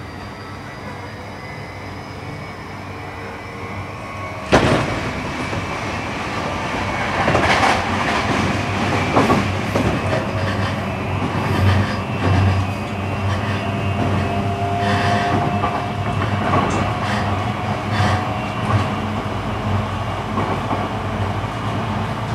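E235 series electric train running at speed, heard from inside the car: a faint, slightly rising whine of the SiC-VVVF inverter traction motors over rolling noise. About four and a half seconds in there is a sharp bang, and after it the running noise is louder, with wheels clicking over rail joints.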